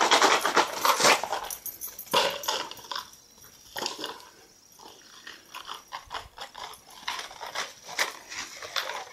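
A puppy whining and making small noises, among irregular clattering knocks that are loudest in the first two seconds.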